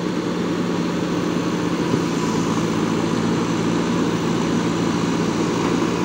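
JCB 3DX backhoe loader's diesel engine running steadily while the backhoe arm digs and lifts mud.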